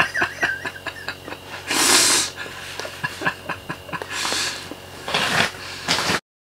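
Stifled laughter: a man snorting and breathing out hard through his nose with his hand over his mouth, three loud breathy bursts, with a string of small quick clicks running underneath. It cuts off abruptly near the end.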